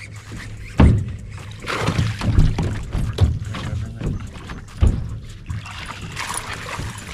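Water splashing as a landing net is swept through the lake to scoop up a hooked fish, with two heavy thumps of feet on the boat's deck, about a second in and again near five seconds.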